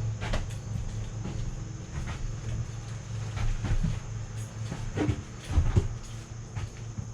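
Irregular knocks and thumps, the heaviest about five to six seconds in, over a steady low hum.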